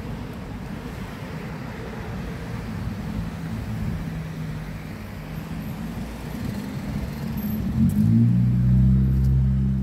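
Road traffic: cars driving along the street beside the pavement, a steady low rumble. About eight seconds in, a louder low hum with steady tones sets in.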